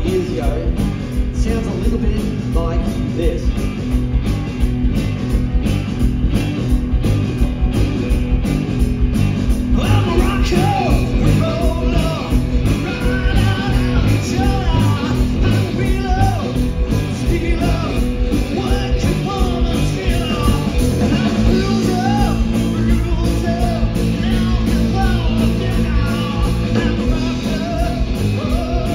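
Live rock and roll band playing electric guitars through amplifiers over a drum kit, with a male lead vocal singing from about ten seconds in.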